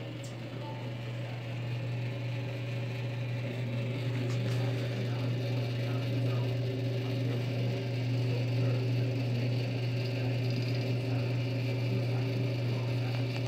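Vintage Electro-Matic-Chef rotisserie oven running, giving a steady low electrical hum that grows a little louder over the first few seconds.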